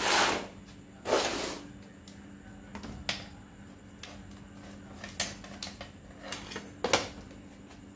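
Equipment being handled on a concrete floor: two short scrapes near the start, then a few light clicks and knocks as a plastic toolbox is shifted and a bicycle repair stand is set under the bike.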